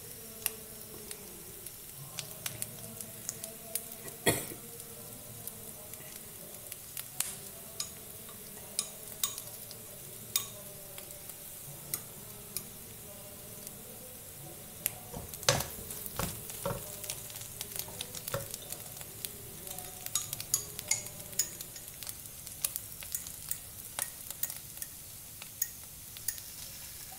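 Onion, green chilli and scrambled egg frying in oil in a nonstick wok, a steady sizzle broken by many sharp crackles and taps as a wooden spatula stirs the mixture.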